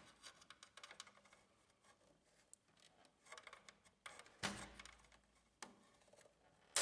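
Faint scraping and small clicks of a screwdriver tip prying at a plastic retaining tab on a laser printer's chassis, with a louder click about four and a half seconds in.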